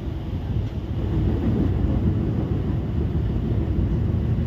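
Steady low rumble of a moving passenger train heard from inside the carriage, the wheels and running gear on the rails, getting a little louder about a second in.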